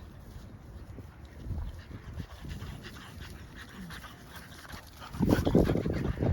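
Dogs at play, with panting; the sound grows louder about five seconds in.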